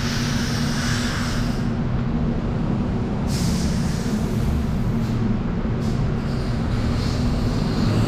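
Steady low mechanical drone with a hiss over it.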